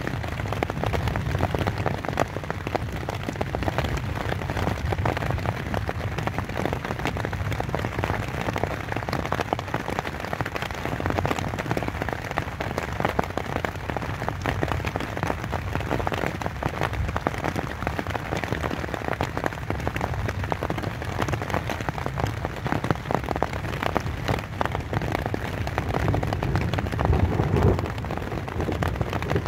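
Rain pattering on a tent's fabric, a dense, steady patter of many small drop impacts over a low rumble.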